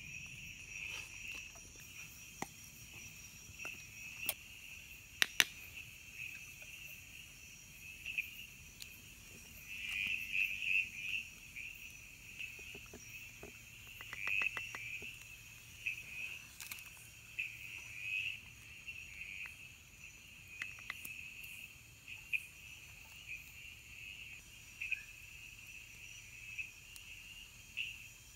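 A chorus of night insects, crickets and the like, chirring steadily with pulsing swells. Now and then there are sharp clicks and light taps, the loudest a pair about five seconds in and a quick run of ticks about halfway through.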